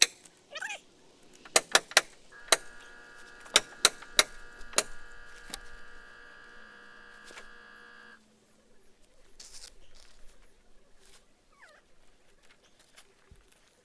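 A caulking gun's trigger clicking in sharp strokes while Zip System liquid flash is squeezed from a sausage tube. A steady pitched hum runs through the middle for several seconds.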